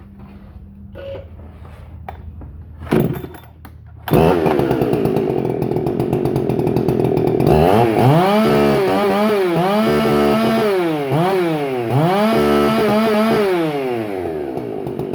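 Husqvarna 372 XP X-Torque two-stroke chainsaw with a custom exhaust being started: a short burst about three seconds in, then it catches a second later and runs steadily. From about halfway it is revved up and down several times, then settles back to a steady run.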